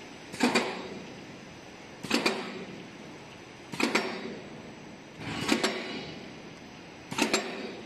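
Automatic cutter on a pet-chew production line chopping extruded chew strips to length: a sharp double clack about every 1.7 seconds, five in all, over steady machinery noise.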